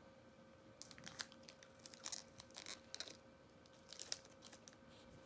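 Plastic wrapper of a Kit Kat bar crinkling and tearing as it is worked open by hand, in faint crackling bursts starting about a second in.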